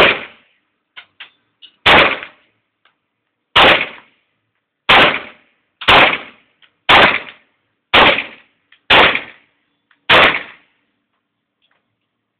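Tokarev 7.62x25mm pistol firing a string of nine single shots, roughly one a second, each trailing off in a short ring. Faint clicks fall between some shots, and the firing stops about ten seconds in.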